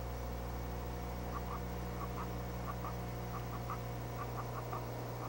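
Maltipoo puppy giving small high squeaks in quick clusters of two or three as it noses into a blanket, over a steady electrical hum.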